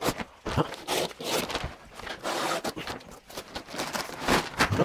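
Irregular knocks, clicks and scrapes of hands working with parts and tools during plumbing work, with no steady machine sound.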